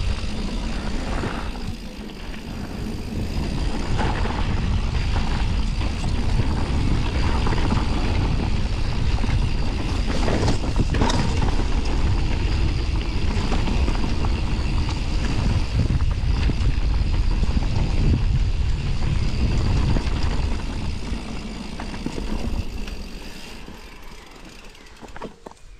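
Mountain bike riding a bike-park trail: a steady rumble of wind on the microphone and tyres on dirt, with chain and frame rattling over bumps and a sharper knock about ten seconds in. The noise dies down near the end as the bike slows.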